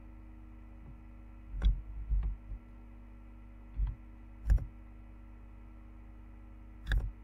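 Several scattered clicks of a computer mouse and keyboard being worked, each a sharp click with a dull low thump, over a steady faint hum.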